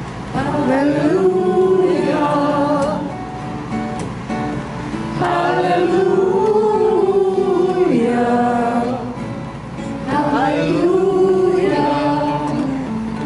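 A woman singing with two acoustic guitars strummed beneath her, in three long phrases with short breaks between them.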